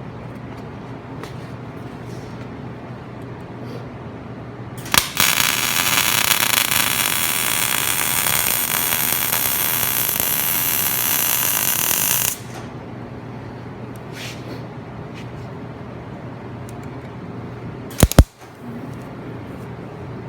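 MIG welder laying a rosette weld through a steel fish plate: a loud, even arc crackle for about seven seconds that stops abruptly. A steady low hum sits under it, and two sharp knocks come close together near the end.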